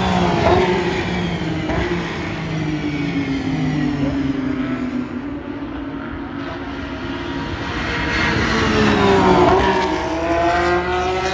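Race cars passing at speed, their engine notes revving and gliding in pitch. The note drops sharply as one car goes by about nine and a half seconds in.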